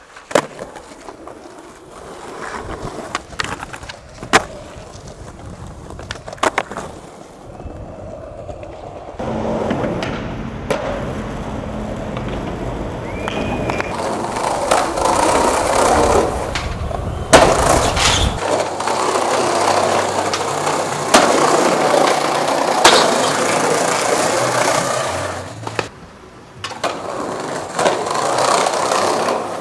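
Skateboard wheels rolling over pavement, with a series of sharp knocks from the board striking the ground, across several separate skate clips.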